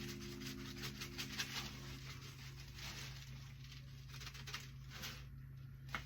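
Dry seasoning being shaken out of a spice shaker, the granules pattering onto raw chicken in a run of light, irregular ticks, with a single sharper click near the end.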